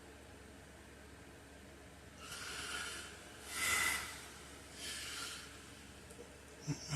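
A sleeping man breathing noisily through nose and mouth: after a couple of quiet seconds come three breathy snorts a little over a second apart, the middle one the loudest. A short low vocal sound follows near the end.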